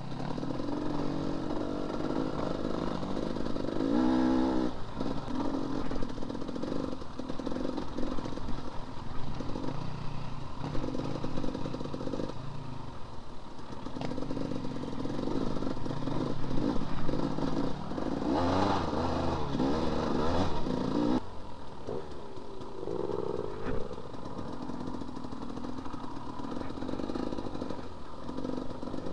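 Enduro dirt bike engine running on the trail, its revs climbing and dropping again and again as the throttle is worked. Knocks and rattles from the bike come through as it goes over rough ground.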